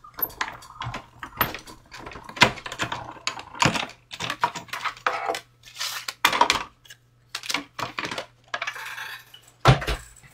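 Hard plastic cutting plates of a manual die-cutting machine clattering and knocking as they are handled and the machine is moved about: a string of irregular clicks and knocks.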